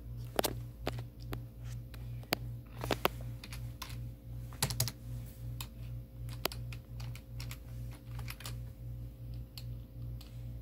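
Typing on a computer keyboard: irregular key clicks, a few at a time with short pauses, over a steady low hum.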